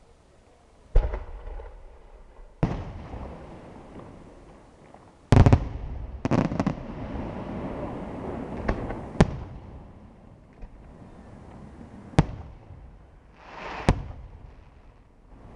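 Aerial firework shells bursting in a night display: a series of sharp bangs, about eight to ten in all, with a quick cluster around the middle. Each bang is followed by a fading echo.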